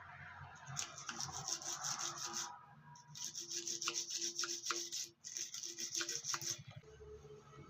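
Quick rasping strokes of a hand tool scraping the tyre rubber around the puncture, in three bursts, as the hole is prepared for a mushroom plug.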